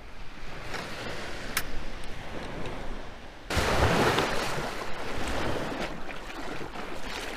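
Shallow Gulf surf washing, with wind buffeting the microphone. About halfway through, the sound jumps suddenly louder and fuller, with the wash of the water in the shallows.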